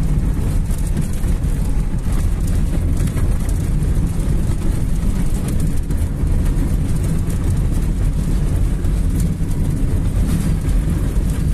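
Steady low rumble inside a car's cabin while it drives on a dirt road in strong wind: engine, tyres and wind buffeting the car blend together.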